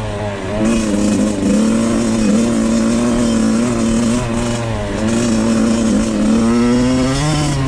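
Suzuki RM85's 85 cc single-cylinder two-stroke engine running under way, holding a steady pitch with a few brief dips as the throttle is eased, then rising in pitch near the end.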